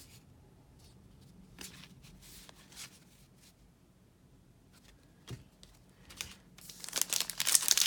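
Trading cards being flipped through, with a few soft card clicks, then near the end a plastic card-pack wrapper crinkling loudly as it is torn open.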